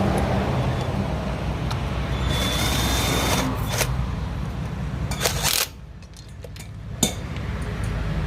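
A steady mechanical drone with brief louder bursts, stopping abruptly about five and a half seconds in, followed by a few sharp clicks and taps.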